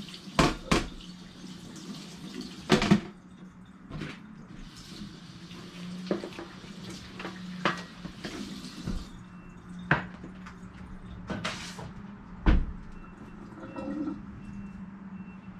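Kitchen faucet running into a stainless steel sink while a plastic colander and a plastic cutting board are rinsed, with knocks and clatter as they bump the sink. The water stops about nine seconds in and a few more knocks follow, over a steady low hum.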